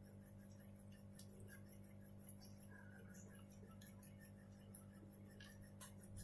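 Near silence: a steady low electrical hum with faint, scattered small clicks and ticks of a screwdriver and screws being worked on a laptop hard-drive bracket.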